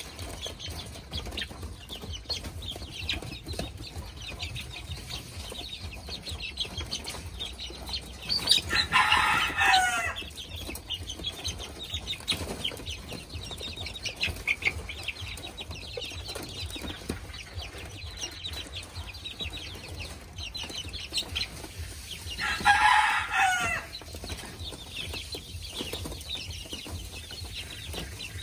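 Gà tre bantam cockerel crowing twice, about a second and a half each, ending on a falling note, over steady soft clucking and peeping from the flock.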